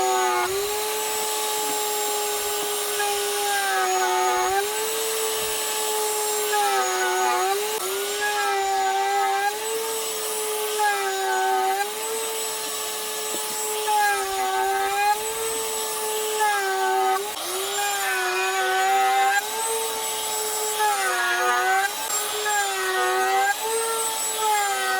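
Router motor running at high speed while cutting a channel in a wood block. Its whine sags in pitch for a moment every second or two as the bit bites into the wood, then recovers.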